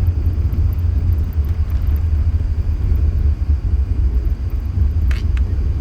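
Steady low rumble inside the passenger cabin of an Airbus A380 rolling on the ground after landing. Two short clicks sound close together about five seconds in.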